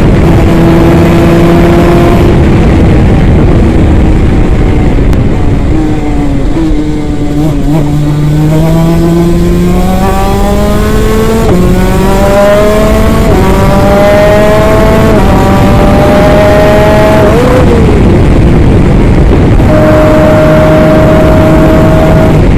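Twin-cylinder 250cc two-stroke superkart engine heard onboard at speed, holding steady revs, then dropping in pitch as the kart slows about six seconds in. It then climbs through the gears, the pitch rising and falling back sharply at each upshift about every two seconds, and settles to steady revs near the end.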